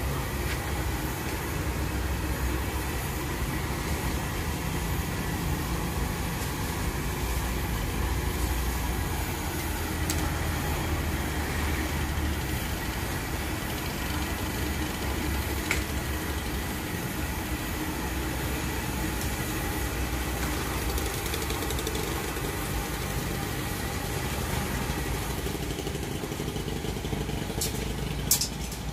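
Steady low rumble of a gas burner under a large wok of deep-frying oil, with the oil sizzling and a few sharp clinks of a metal ladle and strainer, one near the end.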